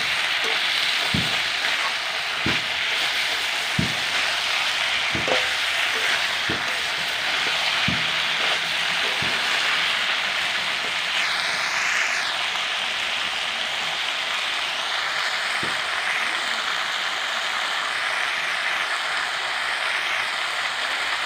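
Spiced green jackfruit pieces sizzling as they are fried down dry in an iron kadai. A metal spatula knocks and scrapes against the pan about every second and a half for the first nine seconds, and once more later.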